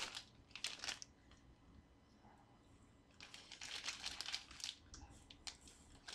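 Clear plastic bag of laser-cut plywood parts crinkling as it is handled, in a short rustle about a second in and a longer spell of rustling in the second half, with a quiet gap between.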